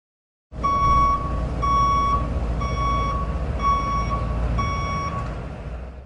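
Truck's reversing alarm beeping five times, about one beep a second, over the low rumble of its engine. The sound starts about half a second in and cuts off abruptly near the end.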